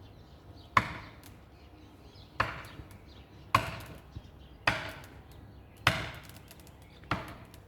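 Axe chopping into a standing tree trunk: six hard, evenly spaced blows about a second apart, each a sharp crack with a short ringing tail.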